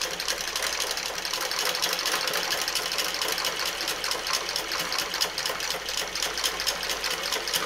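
Basic single-needle sewing machine running at a steady speed, its needle stitching with a fast, even clatter. It is sewing a rolled hem over fishing line through a rolled-hemming foot.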